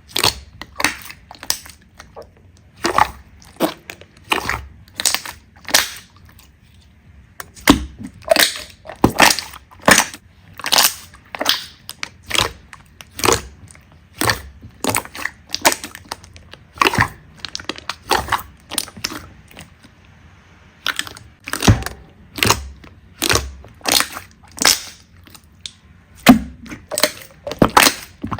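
Slime being squeezed and pressed by hand, giving sharp pops and clicks about one or two a second, with two brief pauses.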